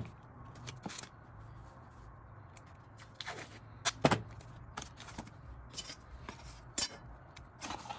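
Blue painter's tape being pulled off its roll, torn and pressed onto a wooden cigar box: a string of short ripping and crinkling sounds at irregular intervals, the sharpest about four seconds in and again near seven seconds. A faint steady low hum lies underneath.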